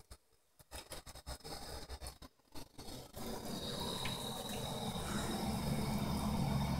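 Bathroom faucet running a thin stream of water into the sink, a steady trickle that sets in about three seconds in, after a few scattered faint taps.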